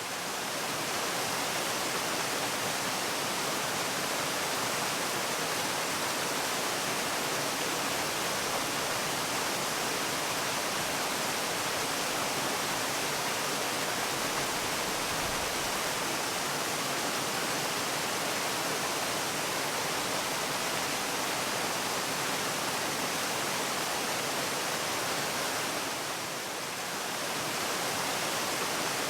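Waterfall: a steady, even rush of falling water, with a slight brief dip in loudness near the end.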